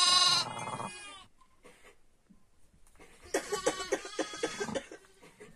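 Sheep bleating: one loud bleat right at the start that fades within about a second, then a quieter, quavering bleat about three and a half seconds in, from a ewe and her newborn lamb.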